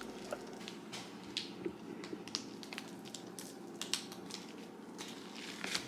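Fluffy slime made with shaving cream being squeezed and stretched by hand, giving off irregular small crackles and pops.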